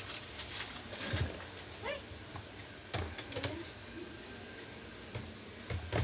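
Scattered clicks and knocks of a screwdriver against the metal and plastic parts of a dismantled box fan, the loudest about a second in and near the end. An animal calls faintly a couple of times in the background.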